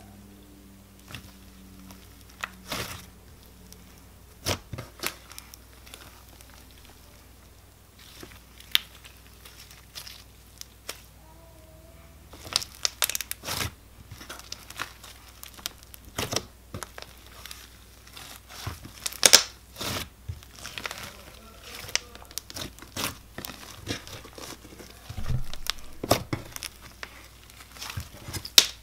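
Butter slime being kneaded, squeezed and pulled apart by hand, making irregular crackles, sticky tearing sounds and sharp little pops. The crackling is sparse at first and comes thicker from about halfway.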